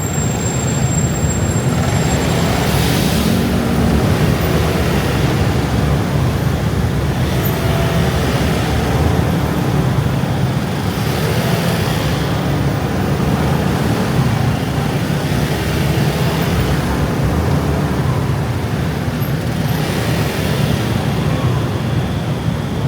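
Heavy rush-hour traffic of many motor scooters: a steady, dense engine hum, with louder vehicles passing close every few seconds.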